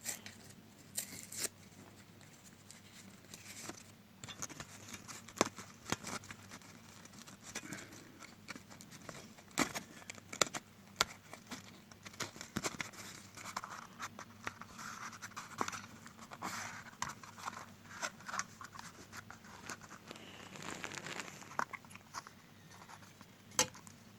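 Scattered clicks, light knocks and rustling scrapes of a sewing machine foot pedal's small parts and casing being handled and fitted back together.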